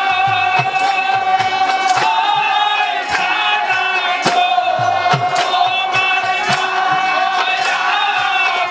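A group of voices singing a devotional chant together, held notes gliding between pitches, with hand clapping and percussion keeping a steady beat.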